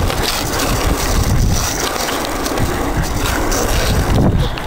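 Skateboard wheels rolling on a concrete path, a steady rumble.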